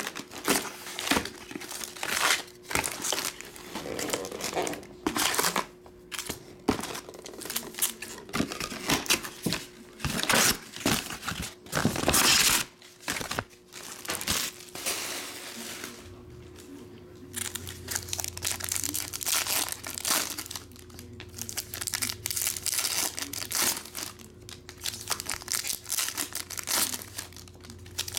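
Foil-wrapped trading card packs from a Topps Series 1 baseball hobby box crinkling and crackling as they are handled and stacked, in dense irregular bursts, loudest about halfway through. A faint steady hum runs underneath.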